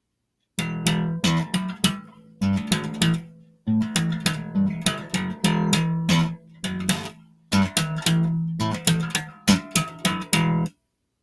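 Music: a plucked guitar tune over a bass line, played in short phrases with brief breaks. It starts about half a second in and cuts off abruptly shortly before the end.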